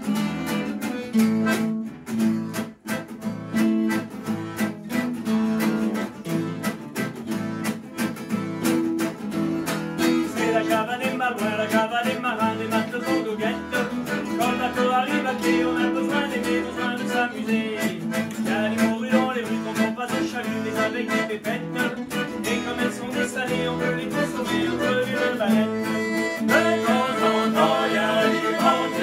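Two acoustic guitars strumming and a button accordion playing a java, a waltz-time musette dance tune. A group of men's voices joins in singing about ten seconds in.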